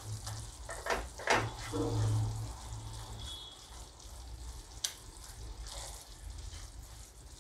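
Jaggery syrup bubbling in a ceramic-coated pan as it is boiled down for chikki, with a silicone spatula stirring and scraping the pan bottom. A few sharp scrapes stand out about a second in and near five seconds.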